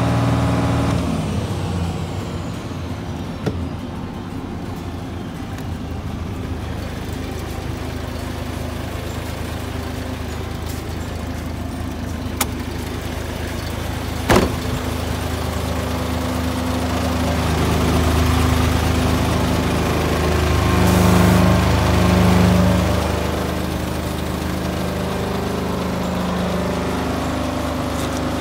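Isuzu Giga truck's diesel engine falling back from a rev to a steady idle in the first second, then idling. Two sharp clicks come about halfway through, and the engine sound swells louder for a few seconds in the later half.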